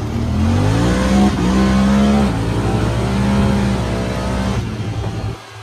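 Motorcycle engine revving: the pitch climbs and holds high, eases off, then revs up and holds again before cutting off abruptly near the end.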